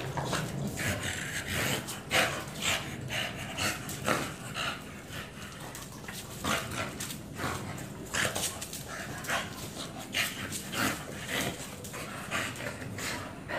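Two bully-breed dogs play-wrestling, panting and huffing hard in short, irregular bursts.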